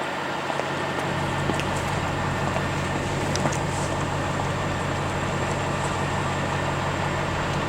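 A motor vehicle's engine running with a steady low hum that comes in about a second in, over a constant noisy rush.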